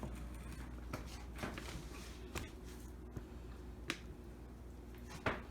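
Spatula scraping banana bread batter out of a mixing bowl into a loaf pan, with about five sharp clicks and taps of the spatula against the bowl and pan, the loudest near the end.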